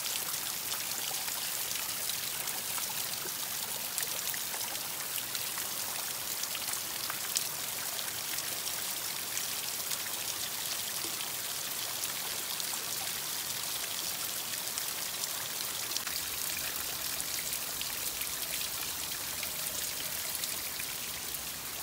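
Many thin streams and drops of water falling from a wet, mossy rock face and splashing below: a steady hiss of trickling water, full of small drip ticks.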